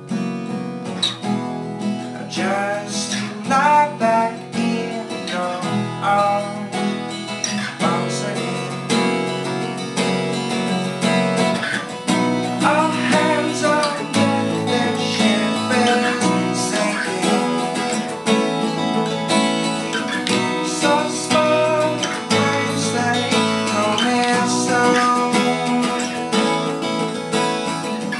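Acoustic guitar being played, strummed and picked through an instrumental passage of a song.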